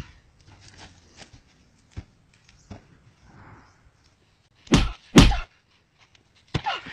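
Blows in a staged fist-and-kick fight: two loud, sharp punch-like thwacks about half a second apart, with a third starting right at the end, after a few seconds of faint taps and clicks.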